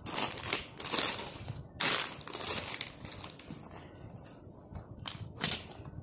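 Plastic crisp packets crinkling as they are handled and pushed into a backpack. The rustling comes in several bursts, the loudest in the first three seconds, with another short one about five and a half seconds in.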